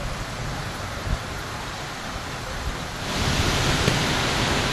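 Heavy rain pouring in strong wind, with gusts buffeting the microphone. The rain's hiss grows louder and brighter about three seconds in.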